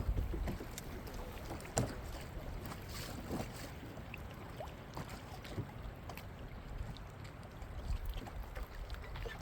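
Wind rumbling on the microphone and water moving against a fishing boat, with a few light clicks and knocks scattered through.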